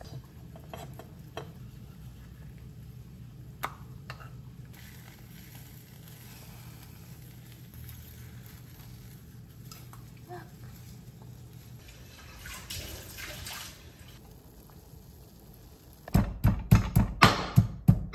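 A low steady hum with a few light utensil clicks, then near the end a quick run of about eight loud strikes, about four a second, as a pestle pounds in a marble mortar.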